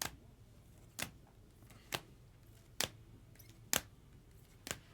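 Trading cards being set down on a table one after another: a sharp tap about once a second, six in all.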